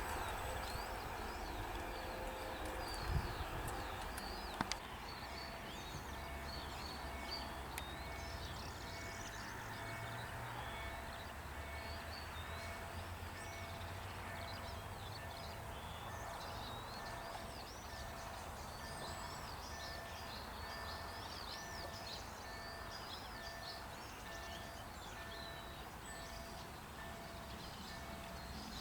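Small birds chirping in many quick, short calls over a faint low rumble. A faint, evenly pulsed electronic beep joins about five seconds in and repeats steadily.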